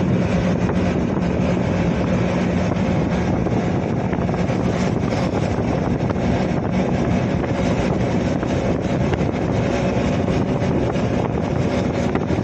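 Steady running noise of a moving vehicle: an even rush of road and wind noise with a low, constant engine hum.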